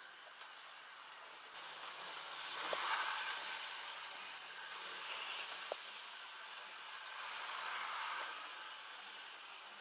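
Model train running along the layout track: a hissy rumble of motor and wheels that swells and fades twice as it passes, with two short sharp clicks.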